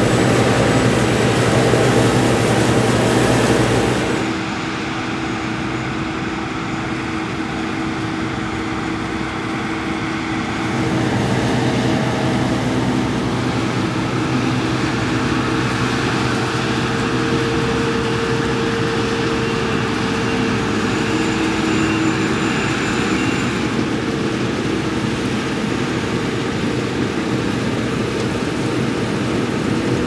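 Claas Lexion 560 combine harvester running under load while harvesting barley: a steady engine drone mixed with the whirr of the threshing machinery. The tone and level change abruptly about four and ten seconds in.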